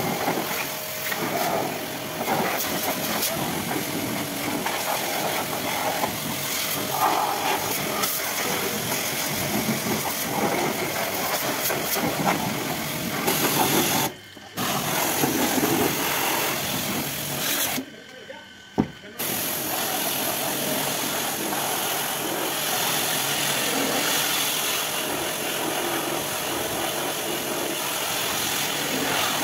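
Pressure washer spraying a water jet onto a car's wheel and bodywork: a steady hiss of spray that breaks off briefly twice, once about halfway through and again about two-thirds of the way in.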